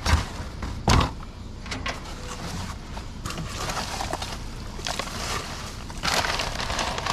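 Rummaging through scrap and trash: two sharp knocks about a second apart, then rustling and shuffling, louder near the end.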